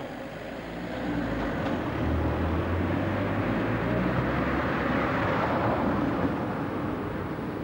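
A motor vehicle passing, its low engine hum and road noise swelling over a few seconds and then easing off.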